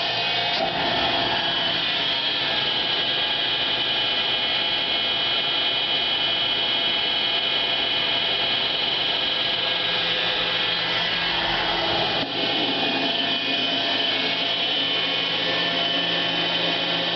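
A 1912 TUEC Model 210 central vacuum running steadily: its 9/10-horsepower, 240-volt electric motor spins one large impeller, giving a steady whirring hum with a whine. About twelve seconds in there is a brief dip and the lower tones change.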